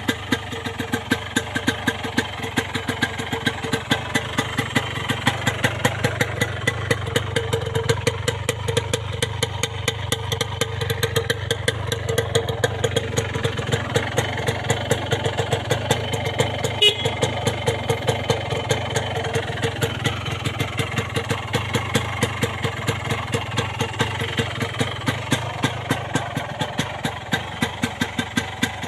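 Yamaha RX-King's 135 cc single-cylinder two-stroke engine idling steadily, with regular sharp ticks standing out above the running. The owner is unsure whether this engine sound is normal.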